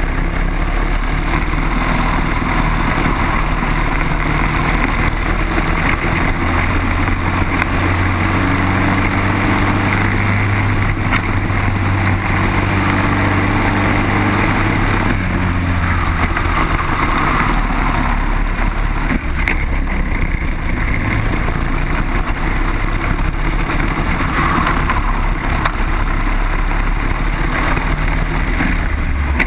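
Briggs & Stratton kart engine running under racing load, recorded onboard, with wind rushing over the microphone. The engine note climbs and holds strong down the straight, then drops back just past halfway and carries on lower.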